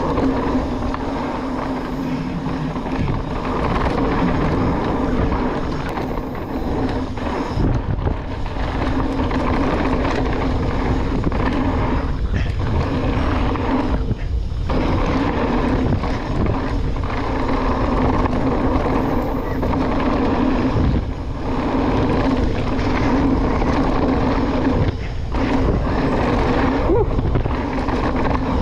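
Mountain bike riding fast down a dirt trail: a steady buzz over tyre and wind noise, which drops out for a moment a few times.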